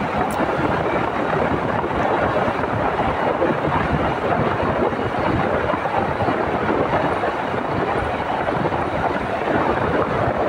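Steady, even rush of wind and road noise from a motorcycle moving at speed.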